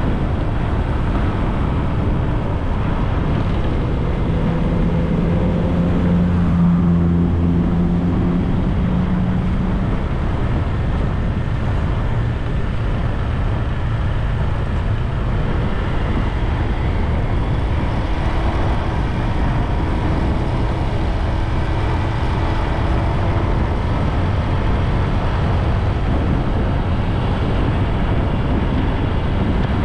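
Steady wind and road rumble on the microphone of a moving bike. An engine hum swells about five seconds in, stays for a few seconds, then fades, with a fainter engine tone later on.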